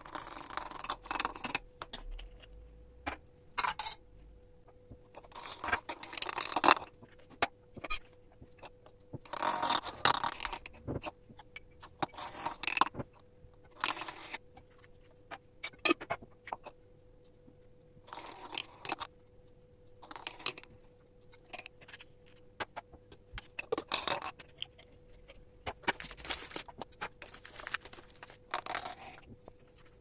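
Ground spice being poured and scraped from glass bowls through a plastic funnel into glass spice jars, in a series of short rustling bursts, with small clinks and knocks of glass jars and lids between them.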